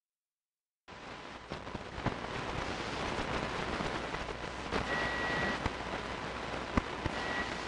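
Dead silence, then about a second in a steady hiss with scattered crackles and clicks sets in, with a faint high steady whistle under it.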